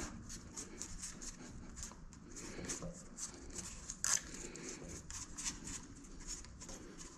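Faint, irregular ticks and crinkles of hands pressing an adhesive LED light strip and its red backing film onto a metal fender bar, with one louder click about four seconds in.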